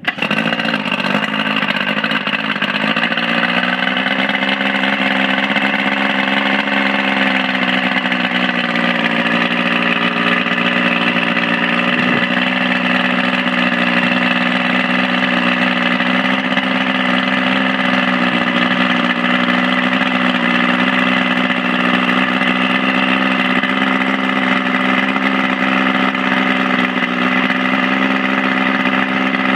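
Mercury 55 HP two-stroke outboard motor running at idle. Its pitch climbs a little over the first few seconds, then holds steady.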